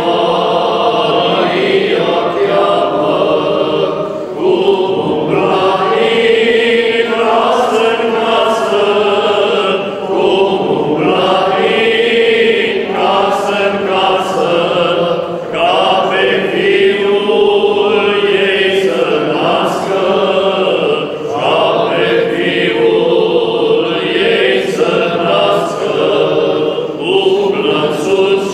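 A group of Orthodox priests singing liturgical chant together without accompaniment, in phrases of about five to six seconds with brief pauses for breath between.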